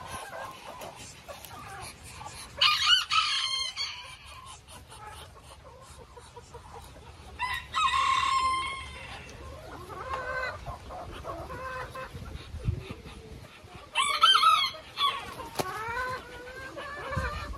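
A rooster crowing several times, each crow lasting about a second, with softer clucking calls from chickens between the crows.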